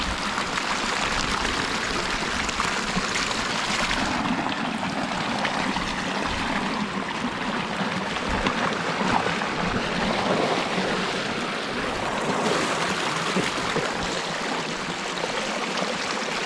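Creek water rushing steadily through a breach in a beaver dam, splashing down into the channel below as the pond behind it drains.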